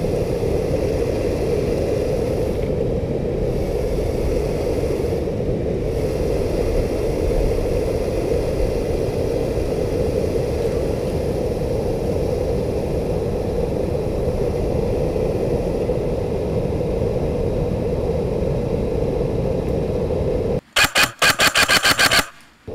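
A steady low rushing noise, then near the end a quick burst of about eight shots in a second and a half from an airsoft electric rifle firing full-auto, the loudest sound here.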